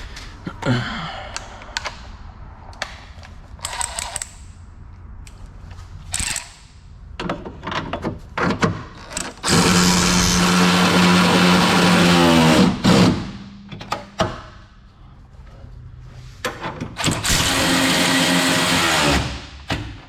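A handheld power tool running suspension bolts in: two steady runs of about three seconds and two seconds, the motor winding down at the end of the first. Short metallic clinks of tools and hardware come between the runs.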